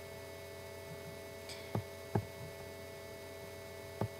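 Four sharp computer-mouse clicks, a pair a little before the middle and a pair near the end as the quiz answer is submitted, over a steady electrical hum.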